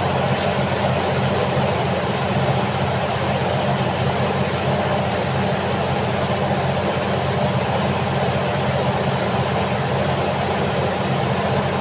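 Bulldozer's heavy diesel engine running at a steady pitch.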